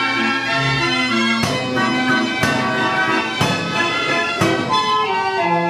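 A 1928 Carl Frei Dutch street organ playing a tune: its pipes hold sustained melody notes over a bass line. From about a second and a half in, its percussion strikes four times, about a second apart.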